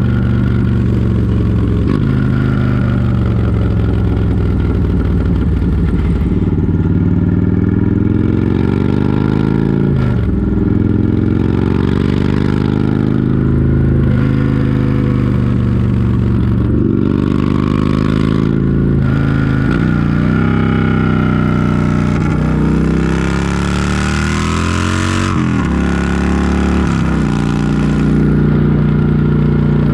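Harley-Davidson V-twin touring motorcycle riding hard. Its engine pitch climbs and drops back every few seconds as the throttle opens and closes and the gears change.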